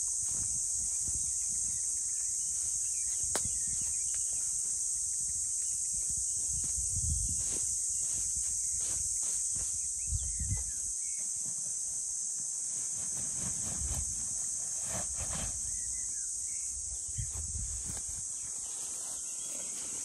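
A steady high-pitched chorus of insects, with scattered rustles and soft knocks from a canvas tent and a rucksack being handled.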